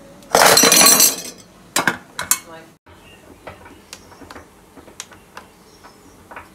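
Metal momo steamer pot clattering and scraping for under a second as its tiers are handled, then a couple of sharp metal clinks, one ringing briefly. After that come a few light clicks of fingers on the blender's control buttons.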